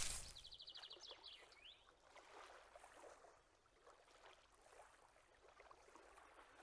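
Faint, irregular rustling of grass, with a brief high trill about half a second in.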